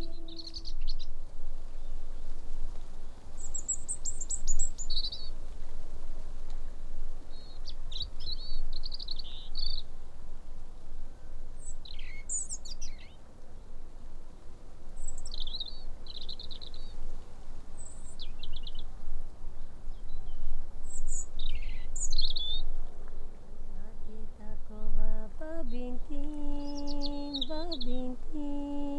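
Several small birds singing short chirps and trills, over a steady low rumble. In the last few seconds a slow melody comes in, note by note.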